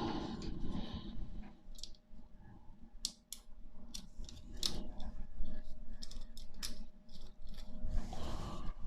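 Steel bicycle spokes clicking and ticking against each other, the hub and the rim as a spoke is threaded into place while lacing a wheel: a run of irregular sharp metallic clicks.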